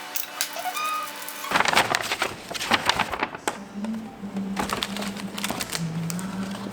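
Background music with a melody for about a second and a half, then a cut to rapid clicking and knocking of handled objects, with a low hum that shifts in pitch a couple of times.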